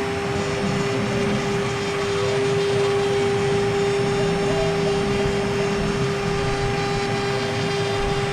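Water-cooled 3.0 kW spindle of a CNC wood router running at a steady high pitch while the bit cuts wood, with a rough, uneven cutting noise beneath the whine.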